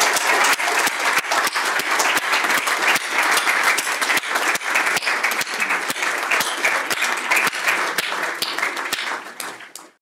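Audience applauding, many people clapping together; the applause fades out near the end.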